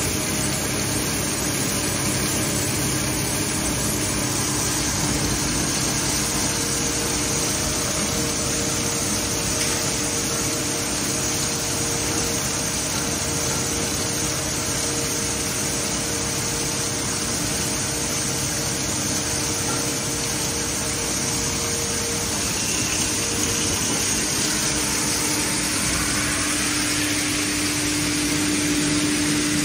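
Industrial shredding machine and its blower-and-cyclone conveyor running steadily, a continuous machine drone with a steady whine that grows louder near the end.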